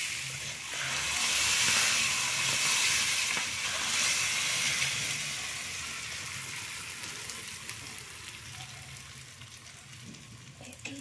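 Hot oil poured from a pan onto spiced lapsi (hog plum) pickle in a metal bowl, sizzling hard as it hits. The sizzle is loudest in the first few seconds and dies down toward the end.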